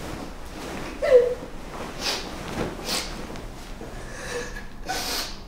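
A woman's sharp breaths and snorts, with a short falling vocal sound about a second in, over the rustle of a large blanket being swirled and wrapped around her.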